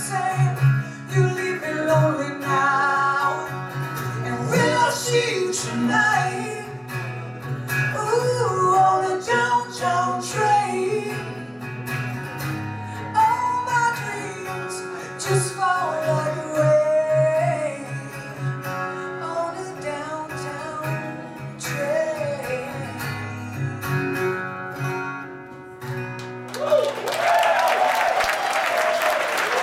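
Live band playing the end of a ballad: a woman singing over acoustic guitar and bass. Near the end the music stops and the audience applauds.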